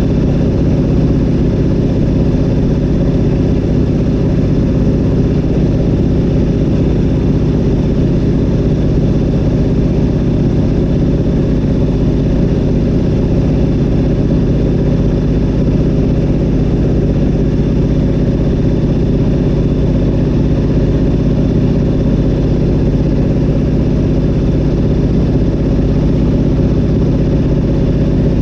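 Zlin Z-37A-2's nine-cylinder M-462 RF radial engine and propeller running steadily in flight, heard from inside the cockpit.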